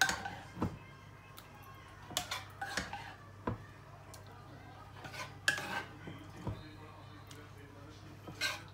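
A spatula scraping and knocking against a frying pan and a glass baking dish as meat sauce is scooped out and spread over lasagne sheets, a short cluster of scrapes and clinks every second or two.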